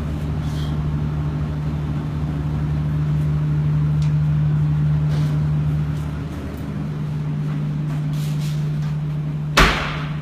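A toilet cubicle door bangs once, sharply and loudly, about nine and a half seconds in, over a steady low hum.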